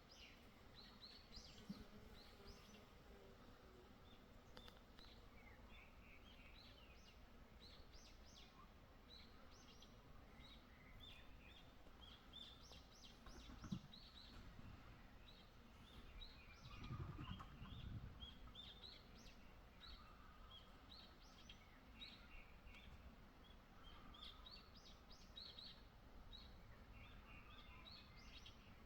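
Faint birdsong: small birds chirping and twittering in many short, high calls throughout. A brief low rumble comes a little past halfway.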